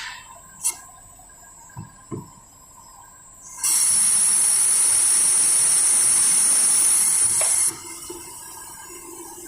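Home-built CNC lathe working a brass washer: a few light clicks over a faint steady whine, then a loud, even hissing noise that starts abruptly about three and a half seconds in and cuts off about four seconds later.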